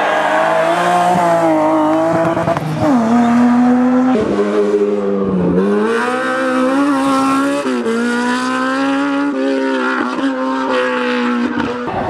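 Racing car engines at full throttle on a hillclimb, revving up and dropping sharply in pitch at each gear change, several times over.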